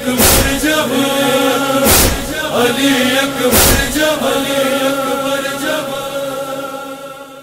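Noha closing chorus: male voices chanting in long held tones, fading out near the end. Three deep thumps fall about every 1.7 seconds in the first four seconds.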